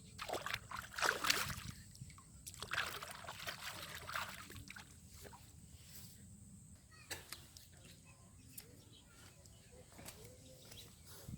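Water splashing and sloshing in shallow water, in two bursts during the first half, then a few small drips and taps.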